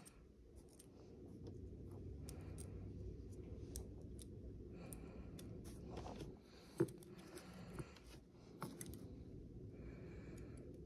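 Small Taurus TH9 pistol parts being worked by hand during reassembly: light clicks and scraping, with one sharp click about seven seconds in.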